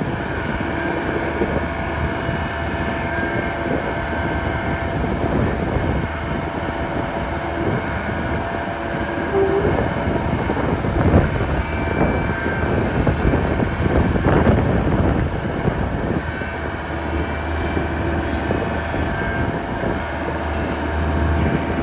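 Takeuchi TB175 excavator's diesel engine running steadily, with a few held higher tones over the engine hum and scattered knocks and clanks.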